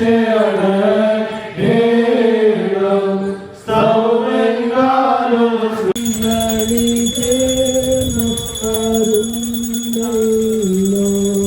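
Voices singing a slow Orthodox liturgical hymn. About six seconds in, the sound cuts to another sung passage with a faint steady high-pitched tone behind it.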